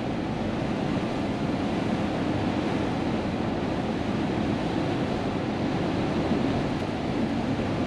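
Steady, even road noise inside the cab of a Hino heavy truck driving in heavy rain: engine, tyres on the wet road and rain on the cab blending into one noise.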